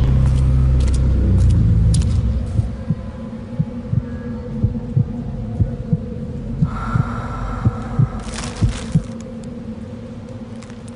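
A deep rumble for the first two seconds or so, then an uneven run of dull low thumps, about two a second, with a short hiss about eight seconds in.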